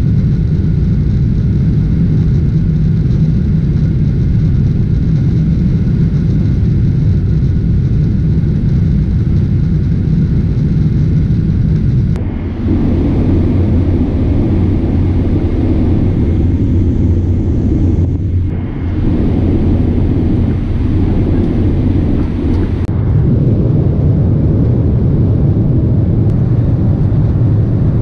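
Cabin noise inside a Boeing 777-300 airliner in flight: a steady, loud, low rumble of engines and rushing air. It changes tone abruptly a few times.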